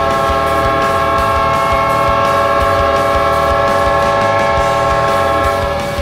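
Ice hockey arena goal horn blowing one long, steady, loud blast that cuts off near the end. A rock goal song with a regular drum beat plays underneath.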